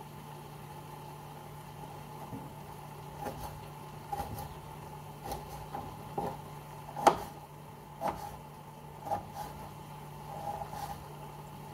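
Kitchen knife chopping an eggplant on a cutting board: sharp knocks of the blade on the board about once a second, the loudest about seven seconds in, over a steady hum.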